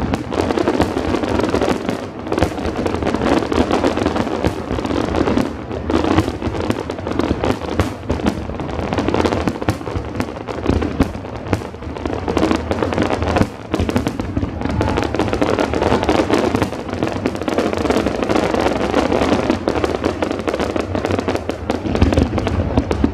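An aerial fireworks display going off in a dense, unbroken run of bangs and crackle, many reports a second, with music underneath.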